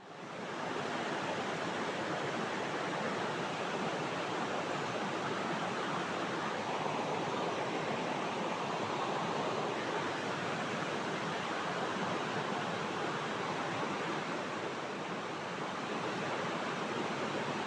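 Steady rush of flowing river water, fading in at the start.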